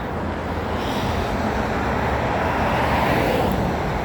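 Road traffic noise, a steady rush of passing cars that swells a little in the middle.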